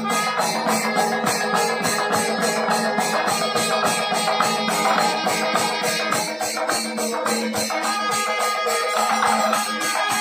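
Kerala temple melam: chenda drums and clashing ilathalam cymbals playing a steady quick beat, with sustained horn tones held over it.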